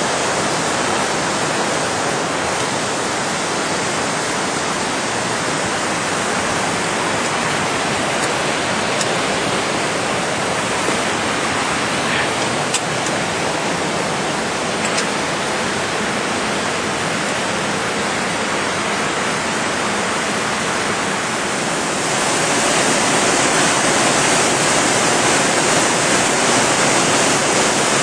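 Waterfall in unusually high flow, a steady heavy rush of falling water that gets louder about three-quarters of the way through.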